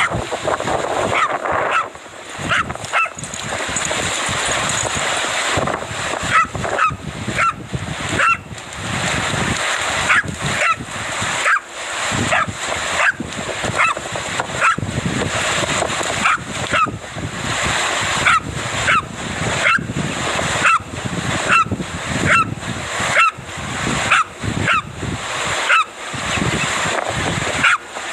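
Dachshund barking over and over in short, sharp barks, about one to two a second, over a steady rush of surf.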